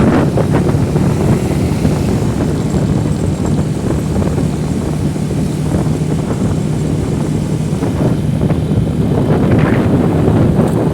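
Motorcycle engine running steadily while riding, under heavy wind noise buffeting the microphone.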